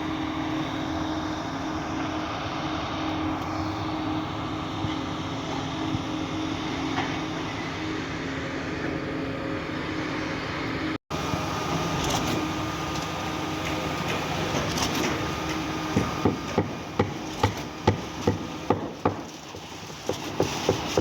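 Concrete pump truck's diesel engine running steadily, with a steady hum. In the last five seconds a series of sharp knocks, about two a second, stands out over the engine.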